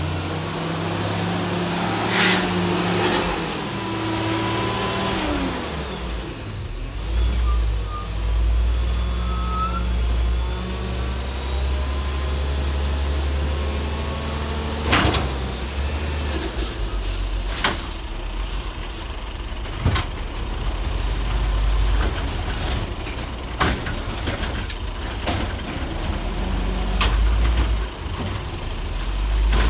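Crane Carrier LET garbage truck's diesel engine running and revving with a high whine that rises and falls, and air brakes hissing several times as it stops and moves between trash carts.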